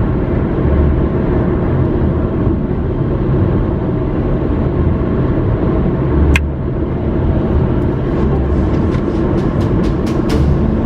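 Steady engine and road rumble heard inside a moving car's cabin, with a single sharp click about six seconds in and a few light ticks near the end.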